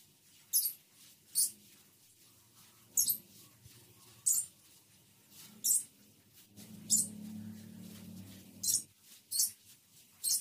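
A broom sweeping a sandy yard: short scratchy swishes, one stroke roughly every second, at an uneven pace. A low steady hum sounds underneath for about two seconds in the middle.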